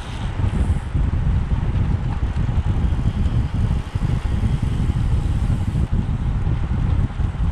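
Wind buffeting the microphone: a steady low rumble that flutters constantly, with no distinct events.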